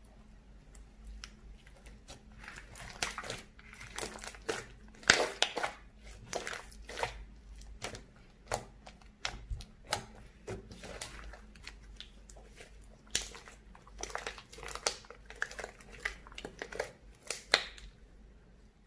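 Slime being squeezed and kneaded by hand, making irregular sticky clicks and pops. They come in two busy stretches, about three seconds in and again about thirteen seconds in, with sparser pops between and a lull near the end.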